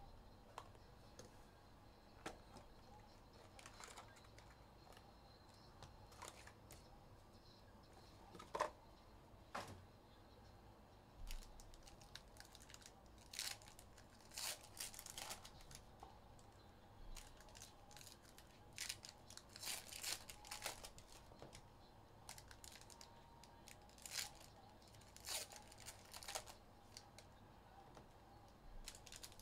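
Faint tearing and crinkling of plastic wrapping as a sealed box of trading cards and its packs are opened. A few isolated clicks come first, then short bursts of crackling and tearing from about halfway through.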